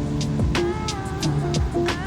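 Background music with a steady beat: deep kick drums and sharp percussion hits over held bass notes and a gliding melody line.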